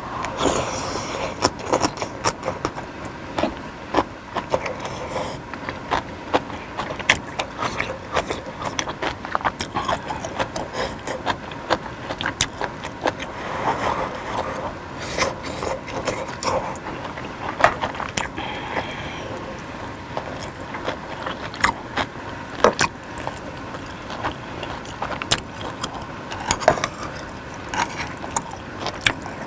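Close-miked eating of suki soup with beef and vegetables: chewing, with many irregular sharp clicks and scrapes.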